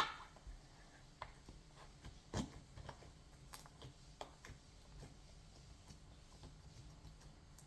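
Slime being handled and pressed into its plastic pot: scattered soft clicks and small pops, with one sharp click right at the start.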